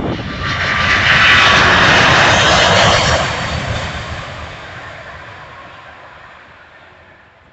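Airbus A380's four jet engines at takeoff power, the roar swelling to a peak and then fading steadily as the airliner goes past and climbs away.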